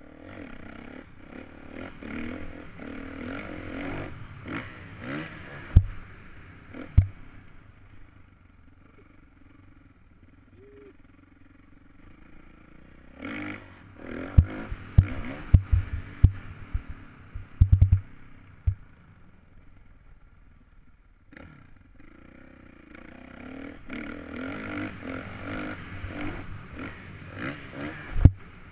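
Dirt bike engine heard from a helmet camera, revving up and easing off in waves, dropping back twice for several seconds at a time. Sharp thuds and knocks cut in over the engine, several in quick succession about halfway through.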